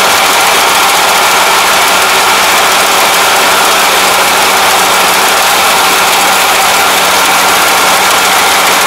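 Rice combine harvester running steadily while its reaper header cuts rice stalks, heard up close: an even, dense machine noise with a steady low engine hum.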